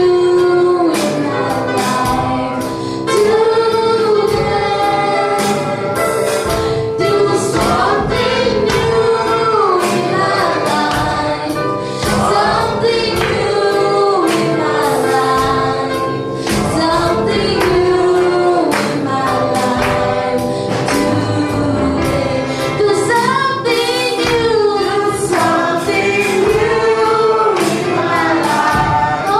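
Gospel praise-and-worship singing: lead and group voices sing a melody over a band with a steady beat, the voices sliding between sustained notes.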